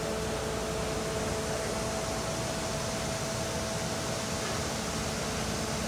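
Steady rushing noise on a cruise ship's open deck, with a steady mechanical hum of two tones from the ship's machinery or vents. The lower tone fades out about a second and a half in.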